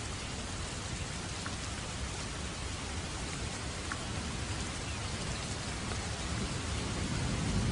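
Steady rain falling, an even hiss, with a low rumble of thunder swelling near the end.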